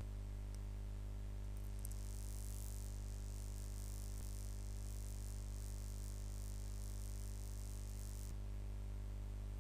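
Steady low electrical hum with a stack of overtones. A few clicks come about two seconds in, followed by a high hiss that cuts off suddenly a little after eight seconds.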